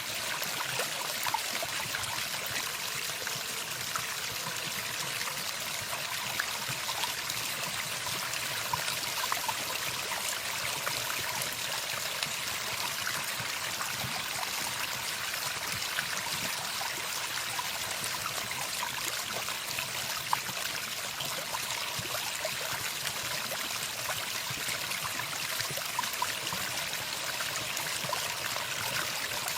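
Running water, a steady trickling stream with small splashes and gurgles throughout.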